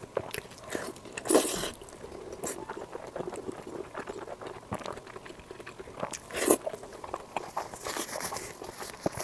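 Close-miked eating: biting and chewing with small wet clicks, and two louder crunchy bites, about a second and a half in and again about six and a half seconds in.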